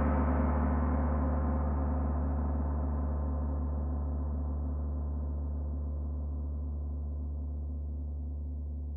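A long, gong-like musical tone made of many steady overtones, ringing and slowly fading away. The higher overtones die out first, leaving the low hum of the note.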